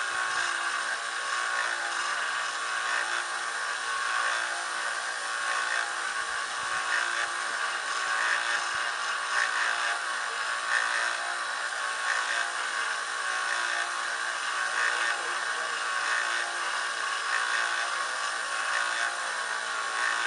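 Small electric benchtop belt grinder running steadily as a longsword's edge is ground on a 400-grit belt: a continuous motor whir with the hiss of steel on the abrasive.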